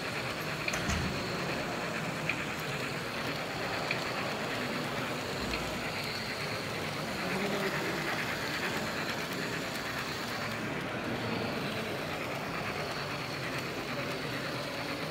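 Märklin H0 model trains running along the layout's track, a model steam locomotive hauling wagons, over the steady hum of a busy exhibition hall.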